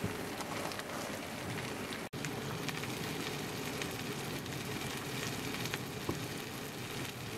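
Eggs sizzling as they fry in a rectangular non-stick pan: a steady crackling hiss, broken by a brief drop-out about two seconds in.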